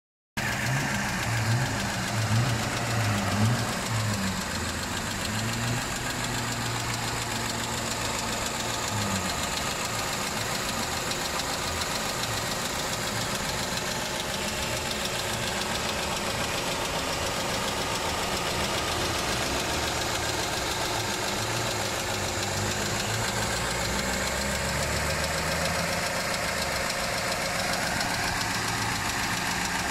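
BMW 520i (E60) N43 four-cylinder petrol engine idling steadily, heard from above with the bonnet open. It is a little louder and less even for the first few seconds, then settles.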